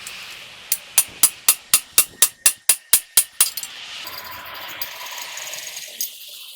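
Hammer blows, about a dozen in quick even succession at roughly four a second, followed by a steady hissing noise over the last few seconds.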